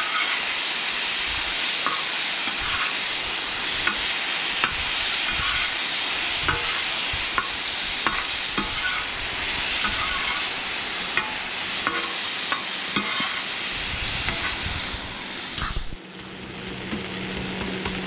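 Potato slices sizzling in soy sauce on a hot cast-iron sadj, with a slotted metal spoon scraping and clinking on the pan as they are stirred. About sixteen seconds in, the sizzle drops abruptly to a quieter hiss.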